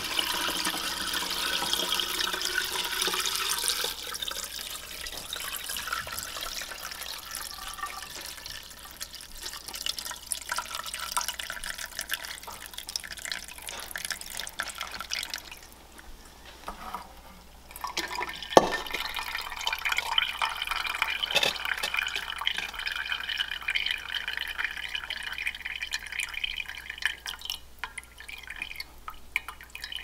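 Broth pouring from a pot through a fine mesh strainer into a glass jar, splashing and dripping, with one sharp clink just past halfway.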